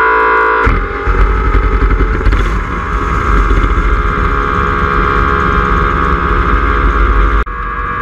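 Distorted electric-guitar music cuts off less than a second in, replaced by the turbocharged V8 engine of a Mustang running, heard close to the open turbo compressor inlet. The engine and intake noise is loud and steady with a heavy low end, broken by a sudden cut near the end.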